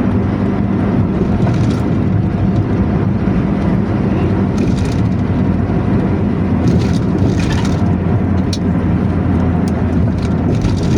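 Intercity bus's diesel engine running steadily with a low snoring exhaust note, with scattered knocks and rattles over it in the second half.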